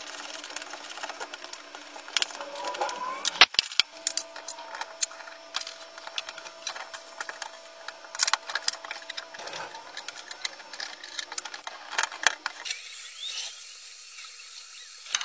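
Scattered clicks and light metal-on-metal taps from hand tools and the moving parts of a cast-iron manual rebar cutter, over a faint steady hum. The loudest clicks come about three and a half seconds in, and it goes quieter near the end.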